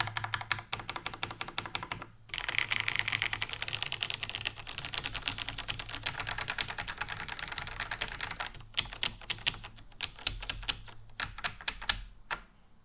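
Fast typing on a tray-mounted plateless NCR-80 R2 mechanical keyboard with lubed retooled Cherry MX Red linear switches and GMK keycaps. There is a short break about two seconds in and another near nine seconds, and the typing thins to separate keystrokes near the end.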